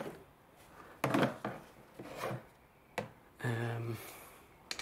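Light handling sounds and a few sharp plastic-and-metal clicks as a hand works at the car battery's negative terminal. A short, steady low hum comes in about three and a half seconds in.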